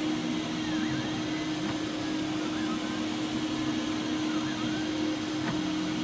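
Robo3D R1+ 3D printer running a print. Its stepper motors whine in tones that sweep and shift about once a second as the print head traces the round layers, over a steady hum and hiss.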